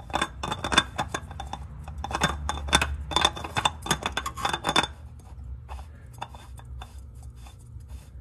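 New spin-on oil filter being turned onto its threaded mount by hand: a quick run of small metallic clicks and rasps from the canister turning, dense for about five seconds and then sparser.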